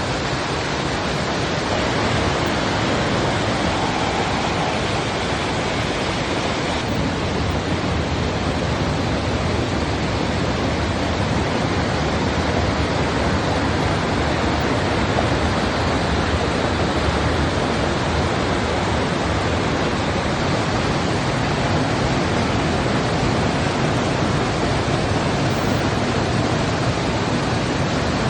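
Large waterfall crashing down steadily, a dense, unbroken rush of falling water.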